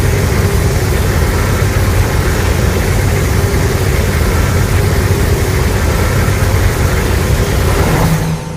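A sound effect from Legendary's Godzilla films: a loud, steady low rumble of dense noise that fades out near the end.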